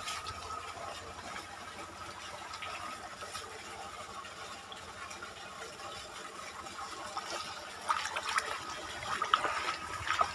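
Irrigation water running steadily along a flooded field furrow, with a few sharper splashes near the end.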